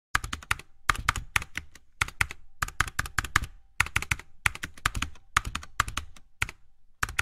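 Keyboard typing clicks, in about ten quick runs of several keystrokes each, separated by short pauses.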